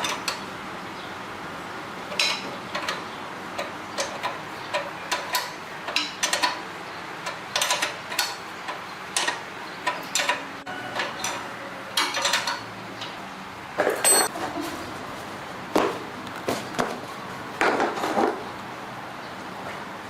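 Irregular metallic clinks and knocks, a few ringing briefly, as tools and metal parts are handled and set down.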